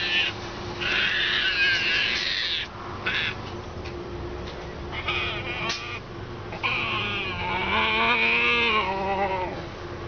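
Striped hyena cub giving a string of high-pitched defensive calls when scared, broken by short gaps. The last and longest call, near the end, wavers up and down in pitch.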